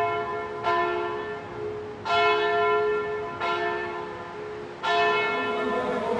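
Church bell of the Basílica del Señor de los Milagros tolling: four strikes about one and a half seconds apart, each left ringing and fading before the next.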